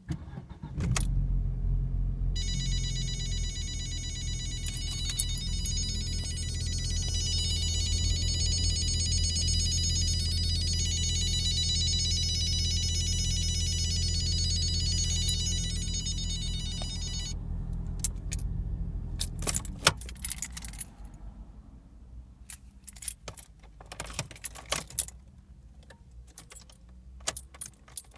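Audi A4 B7 cabriolet engine starting about a second in and idling steadily, while a high-pitched electronic warning tone sounds from about two seconds in for around fifteen seconds, then stops: the unexplained warning noise that comes on at startup. The engine is switched off about twenty seconds in, followed by scattered clicks and rattles.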